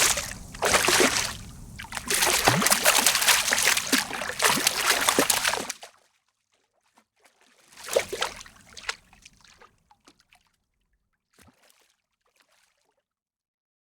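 Water sloshing and splashing in uneven bursts, stopping about six seconds in; one more short splash comes a couple of seconds later, then a few faint drips.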